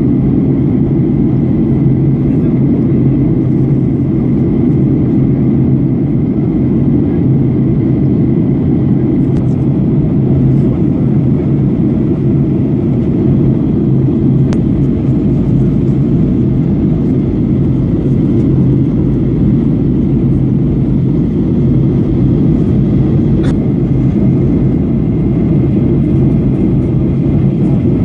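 Airliner cabin noise in flight: a loud, steady drone of the engines and rushing air, with a faint steady high whine above it.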